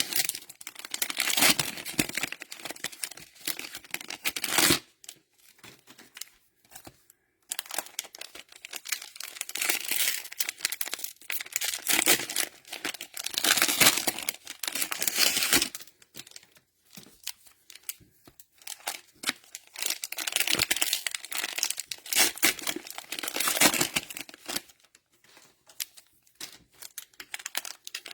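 Crinkling of cellophane-wrapped trading card packs being handled and sorted, in bursts of crackling with short pauses between.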